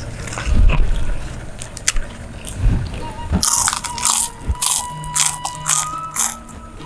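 Crunching bites of crisp kerupuk crackers eaten close to the microphone. A few soft chewing thumps come early on, then a quick run of about six loud crunches in the second half.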